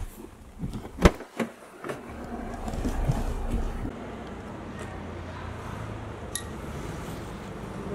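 A sharp knock, then a vehicle engine running: a low rumble that swells for a couple of seconds and settles into a steady low hum.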